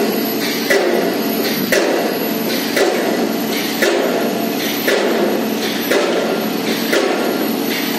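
Movax vibratory pile driver on an excavator arm running as it drives a steel sheet pile: a loud, steady rattling drone that pulses about once a second.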